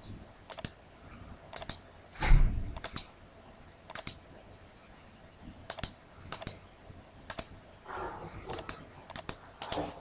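Computer mouse clicks: about ten quick press-and-release ticks at irregular intervals of roughly a second, with a soft low thump about two seconds in.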